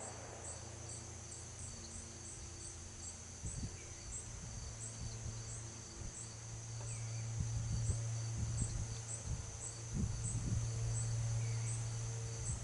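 An insect chirping evenly, about two high-pitched chirps a second, over a steady low hum and a few faint low thumps.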